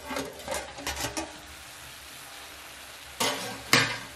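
Beef and onions sizzling in an open aluminium sufuria on a gas burner, a steady frying hiss. Near the end come two loud clanks of metal against the pot.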